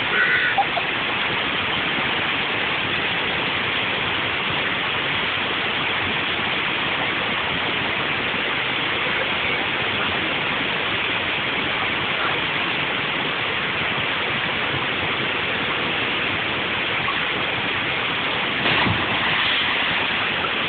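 Steady rush of running water, an even noise with no rhythm, with a brief louder surge near the end.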